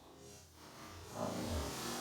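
An iPhone sound effect played in slow motion: a drawn-out, lowered electronic tone with several pitches at once, swelling about a second in.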